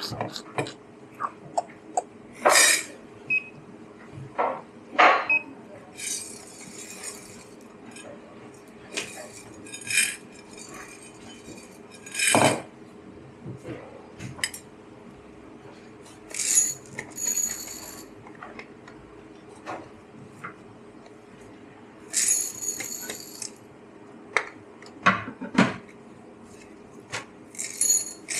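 Coffee-bar work sounds: cups, saucers and metal tools clinking and knocking at irregular intervals, with a few short hisses about a second long and a steady low hum underneath.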